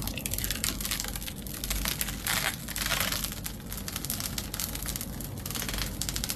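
Dense rapid clicking and crinkling, with two louder rustles about two and a half and three seconds in.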